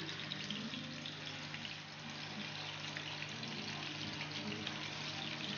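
Beef shashlik skewers shallow-frying in hot oil in a pan, a steady crackling sizzle, with a steady low hum underneath.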